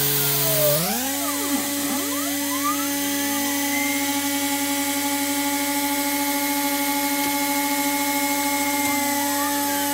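DIY CNC router milling 6082-T6 aluminium plate with a 4 mm two-flute end mill, with lubricant sprayed onto the cut. It makes a steady high whine of several tones over a hiss. The whine steps up in pitch about a second in, and gliding tones swoop up and down as the cutter follows the curved profile.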